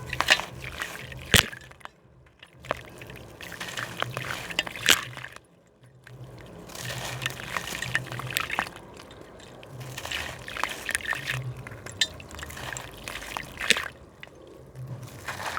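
A gritty slab crumbling and breaking apart in water: irregular crackles and sharp snaps mixed with splashing and trickling, with brief quiet pauses about two and five and a half seconds in.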